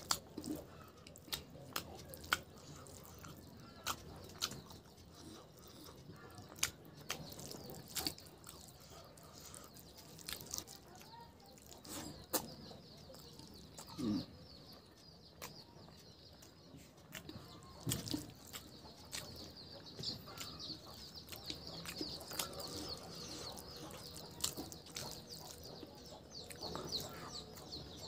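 Close-up eating sounds: wet chewing and frequent sharp lip smacks as rice and chicken curry are eaten by hand. Birds chirp faintly in the background, more steadily in the second half.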